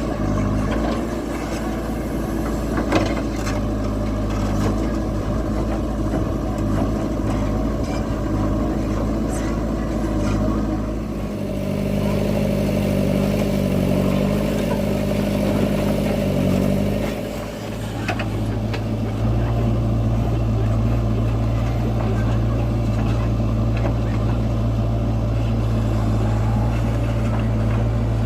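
Heavy diesel machinery engine running, its note shifting between about twelve and seventeen seconds in, dipping briefly, then holding a stronger steady note to the end, with a few sharp knocks along the way.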